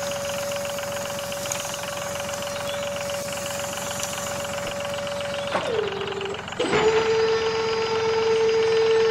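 Small electric motor of a homemade model vehicle whining steadily. About five and a half seconds in, its pitch sags and it cuts out. A second later it starts again, louder and at a slightly lower pitch.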